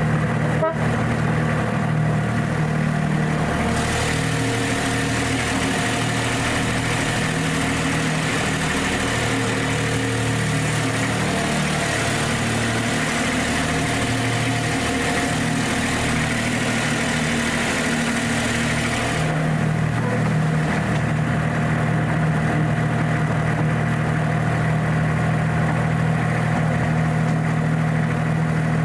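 Engine of the miniature ride-on locomotive DVR D2 1300 running steadily as it travels along the track. From about four seconds in to about nineteen seconds, a loud rushing noise from the running train joins the hum while it passes through a short tunnel, then drops away, leaving the steady engine hum.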